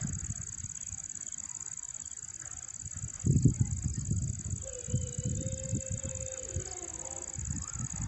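Wind buffeting the microphone in irregular low rumbling gusts, loudest about three seconds in, over a steady high-pitched hiss. A faint held tone with a few small glides comes in past the middle and fades before the end.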